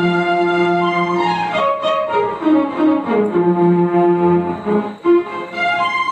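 Roland XPS-10 keyboard playing a melody on a violin-like bowed-string sound: held notes with a few slides between them.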